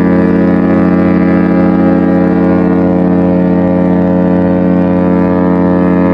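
The ship's horn of the cruise ship MS Nieuw Amsterdam sounding one long, steady blast, a deep tone with many overtones.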